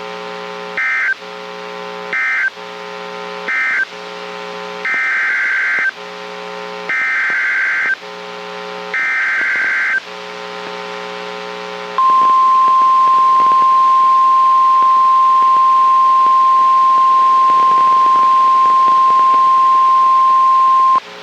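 NOAA Weather Radio Emergency Alert System opening: six short bursts of screechy warbling digital data tones, the SAME header that codes the alert, the last three longer, over a steady buzzing hum. Then, about halfway through, the loud steady 1050 Hz warning alarm tone holds for about nine seconds and cuts off, signalling that a warning is about to be read.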